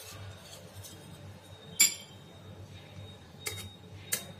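Steel spoon scraping and clinking against a stainless steel idli plate as a steamed thatte idli is loosened around its edge. One sharp metallic clink with a brief ring comes about two seconds in, and two lighter clinks come near the end.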